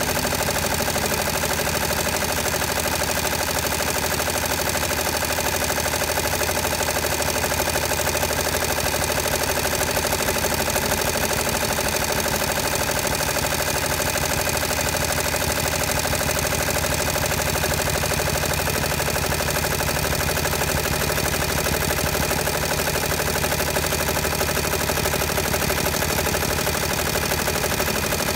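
Multi-needle embroidery machine running steadily, its needle stitching fast and evenly through quilted fabric.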